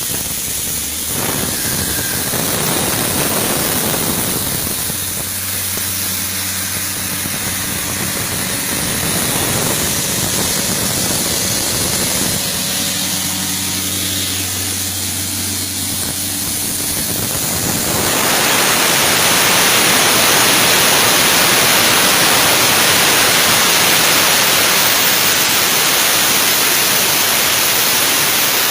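Airman PDS 175 screw air compressor running, its Isuzu diesel engine holding a steady idle. About two-thirds of the way in a loud, steady rush of air starts and keeps on, drowning the engine: compressed air blowing off from the rebuilt screw air end.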